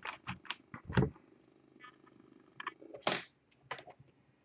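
Rigid plastic trading-card holders clicking and clacking against each other as a stack of them is squared up and handled: a string of short, sharp clicks, the loudest about three seconds in.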